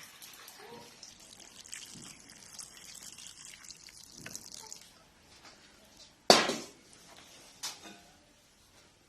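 Water poured into a soup pot of chopped pear and radish, a steady hissing splash for about five seconds. Then a sharp, loud knock a little after six seconds and a lighter one over a second later.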